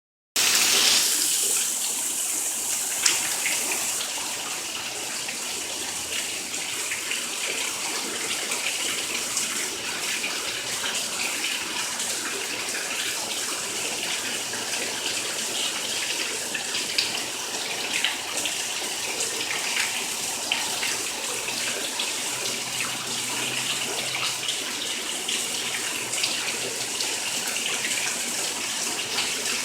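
Heavy rain and running water: a steady watery hiss with a few faint drips and splashes, a little louder in the first few seconds.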